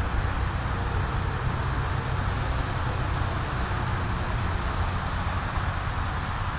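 Steady rushing of a stream's current, an even wash of noise with a strong low rumble.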